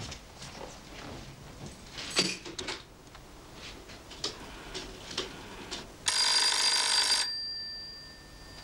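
Desk telephone bell ringing once for about a second, then dying away. Before it, a few light clicks and knocks.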